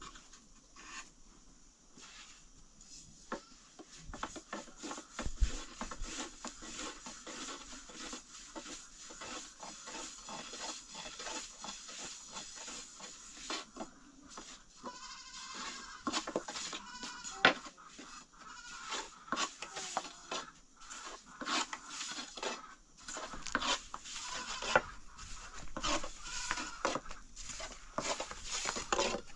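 Goats bleating, several wavering calls through the second half, among many small knocks and clicks.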